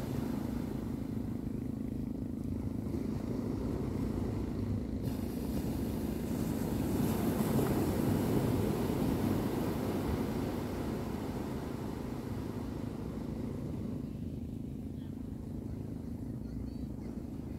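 Small waves washing onto a sandy beach over a steady low hum, swelling a little about halfway through.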